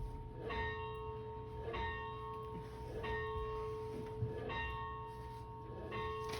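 A bell rung by pulling its rope, striking about once every 1.3 seconds, five strokes in all, each ringing on into the next.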